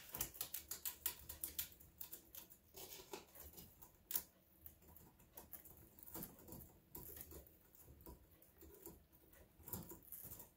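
Degu gnawing on apple branch twigs: quick, irregular faint clicks and crunches, several a second, with a sharper crack about four seconds in.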